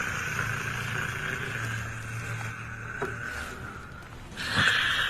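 A person snoring: one long, noisy breath with a faint low hum under it that eases off after about three and a half seconds, and the next breath starting abruptly about four seconds in.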